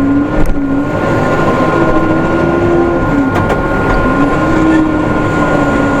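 Case 580M backhoe loader's four-cylinder diesel engine running under load while the bucket scrapes hard ground. Its pitch sags about three seconds in and then picks back up, over a steady high whine, with a few short knocks.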